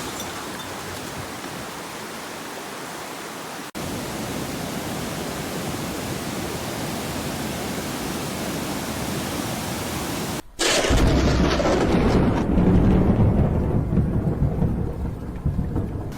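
Storm noise: a steady, heavy rushing like downpour, broken twice by brief cuts. About eleven seconds in it gives way to a louder, deep rumbling.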